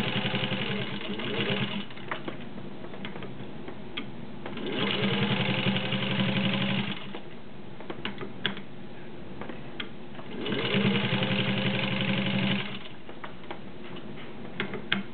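Singer 15-91 sewing machine stitching through six layers of denim in three short runs, its motor speeding up at the start of each run. Light clicks come between the runs.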